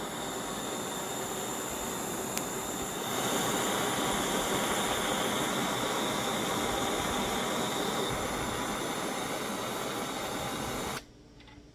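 SpaceX Starship butane jet torch burning with a steady hiss of its blue jet flame, growing louder about three seconds in and stopping abruptly near the end as the flame is shut off.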